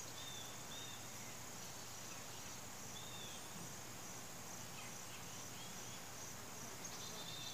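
Quiet outdoor background: a steady faint hiss with a few short, faint bird chirps scattered through it.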